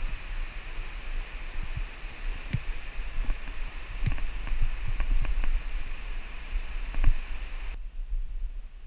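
Footsteps and scuffs of cavers clambering over rock, with scattered knocks from the camera being handled, over a steady low rumble and hiss. The hiss cuts off suddenly near the end.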